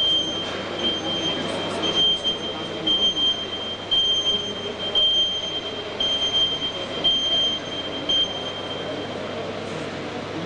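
An ambulance's reversing warning beeper sounds a steady high beep over and over and stops near the end. Beneath it is a steady murmur of arena crowd noise.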